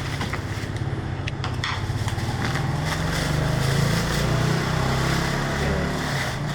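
A low, steady engine hum that swells a little midway, with a few sharp clicks of plastic packaging being handled about a second in.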